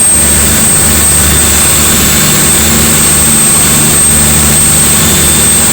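Fast motorboat's engine running steadily at speed: a loud, even low hum under a constant hiss, with a thin high whine held throughout.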